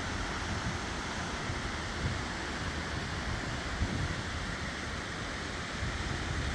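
Lake surf from wind-driven chop breaking on a beach in a steady wash, with wind gusting on the microphone.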